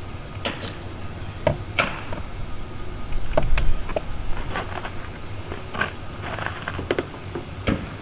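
Irregular sharp plastic clicks, taps and scrapes as a screwdriver is pushed and worked in the back of a car's side-mirror housing to unclip its plastic back cap. A low rumble swells about three seconds in.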